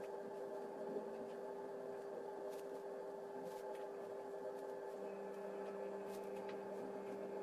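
Steady electrical hum made of several held tones, with a lower tone joining about five seconds in. A few faint ticks now and then.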